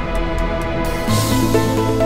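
Electronic background music: sustained synth notes over evenly spaced hi-hat-like ticks. A little under a second in, a swelling noise sweep comes in, followed by a deep bass note.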